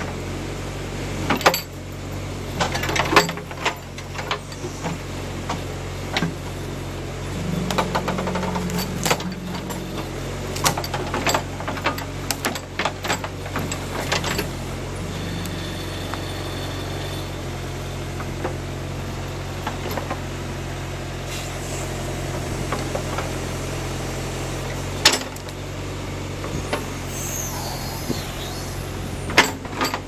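John Deere 310A backhoe's engine running steadily while the bucket digs at a stump, with repeated sharp clanks and knocks from the bucket and linkage working against roots and soil, most frequent in the first half and with one loud knock about 25 seconds in.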